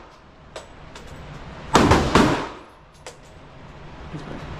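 Two gunshots at a shooting range about half a second apart, roughly two seconds in, each trailing off in a short echo, with fainter single shots before and after.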